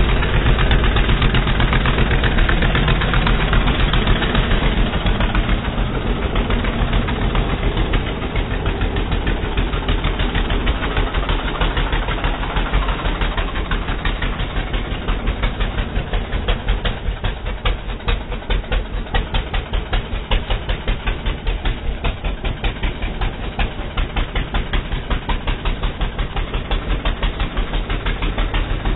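ATV (quad bike) engine running continuously, its firing pulses giving a rapid even throb; it is somewhat louder for the first several seconds, then settles slightly lower.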